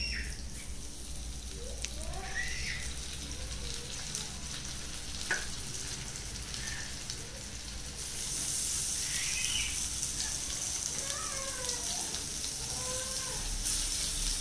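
Rava-coated kallur fish pieces shallow-frying in oil in a non-stick pan: a steady crackling sizzle that gets louder about eight seconds in.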